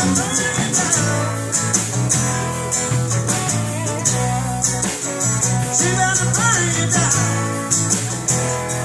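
Live blues-rock band playing: strummed acoustic guitar and electric guitar over low bass notes, with drums and regular cymbal hits.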